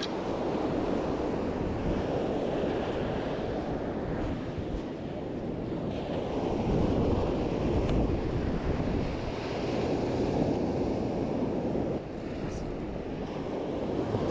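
Ocean surf breaking and washing up the beach, rising and easing in swells, with wind buffeting the microphone.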